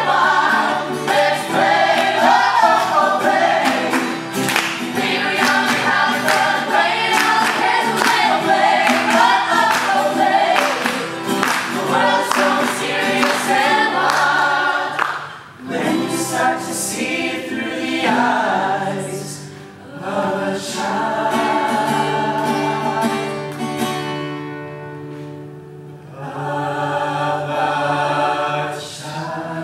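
A mixed ensemble of singers singing in harmony, accompanied by two strummed acoustic guitars, one nylon-string and one steel-string. About halfway through, the busy strumming and singing give way to long held chords, with brief drops in between.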